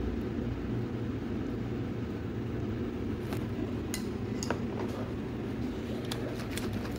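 Light clinks of a metal serving spoon and a ceramic plate, a handful of them in the second half, over a steady low room hum.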